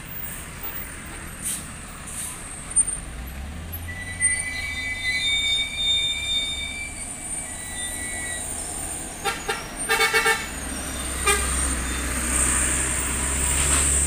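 Heavy trucks' diesel engines labouring up a steep grade, a low rumble that swells about a quarter of the way in and again past two-thirds. A vehicle horn sounds over it: one held note, then a quick run of short toots around two-thirds in.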